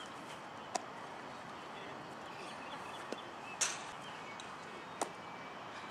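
A few short, sharp knocks of a baseball during fielding practice, the loudest about three and a half seconds in, over a steady background hiss.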